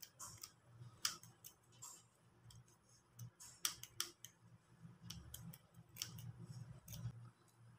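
Scissors cutting, a series of faint, irregular snips.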